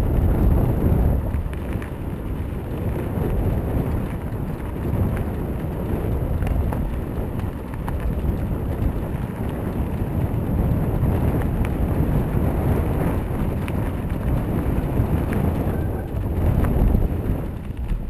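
Wind buffeting an action camera's microphone while riding a mountain bike: a deep, steady rushing noise with scattered light ticks, easing near the end.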